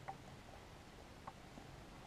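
Near silence, with two faint light ticks about a second apart from hands handling a DRO linear scale and sliding its read head.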